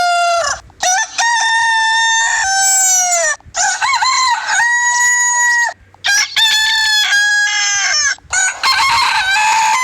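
Rooster crowing over and over: about five cock-a-doodle-doos in quick succession, each one to two seconds long with short gaps between.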